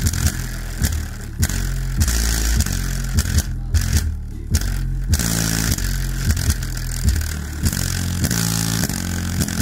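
Subwoofer playing a rap track's deep bass notes, which step up and down in a repeating pattern, with a sheet of paper lying on it buzzing and rattling against the speaker in time with the bass.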